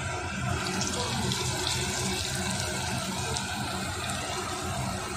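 Medu vada batter frying in hot oil in an aluminium pot, the oil sizzling steadily; the sizzle picks up about half a second in as the vada goes in.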